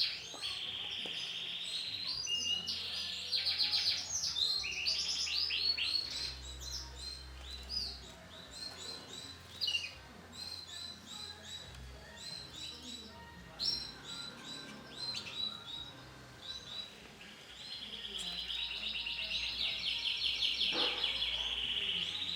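Domestic canary chirping and trilling in rapid runs of high notes, with a long steady trill near the start and another through the last few seconds, sparser single chirps in between.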